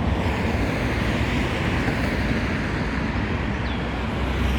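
Wind buffeting the microphone, a steady rumbling noise.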